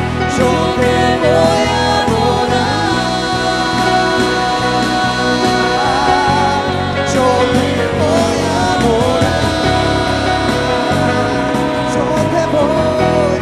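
Live worship band playing with drums, electric and acoustic guitars and keyboard, and voices singing long wavering notes over a steady drum beat.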